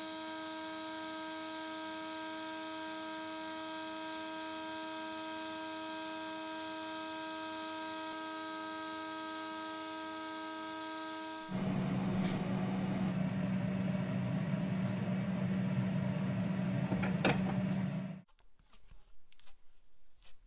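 A small electric motor hums steadily. It gives way to a louder machine sound, a low drone with a rough noise over it, which stops abruptly. A few faint clicks and knocks follow.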